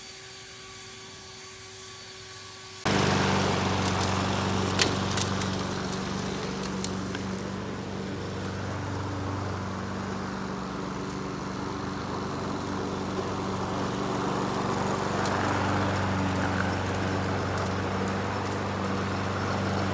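A gas walk-behind lawn mower's engine running steadily while mowing, with a few sharp ticks over it. It comes in suddenly about three seconds in, after a quieter steady hum.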